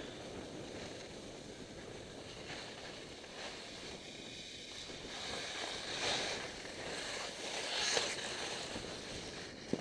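Wind rushing over the microphone of a camera moving down a ski slope, with snow hissing and scraping under the edges. The scraping swells in the second half, with two harder scrapes about six and eight seconds in and a short knock at the very end.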